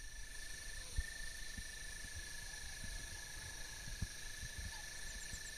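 Evening insect chorus: several insects trilling in steady, high-pitched tones on different pitches. Near the end another starts a rapid pulsed chirp, about nine a second. A few faint low thumps, the loudest about a second in.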